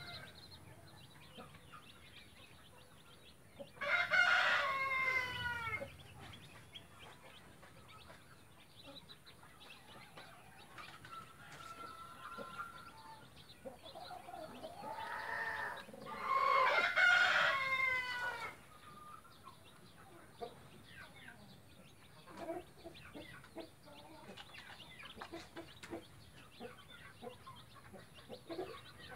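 A rooster crowing twice, about twelve seconds apart, each crow lasting about two seconds and falling in pitch at the end. Between the crows, chicks peep faintly.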